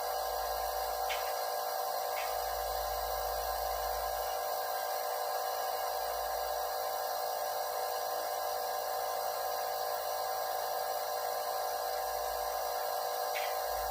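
Nebulizer compressor running steadily with an even hum and hiss, used to treat a cat's cough and difficulty breathing. A few faint ticks sound over it, about one and two seconds in and again near the end.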